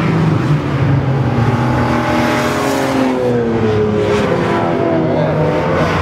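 Race car engines running hard through a corner, their pitch falling and rising as they lift off and accelerate again, with more than one engine heard at once.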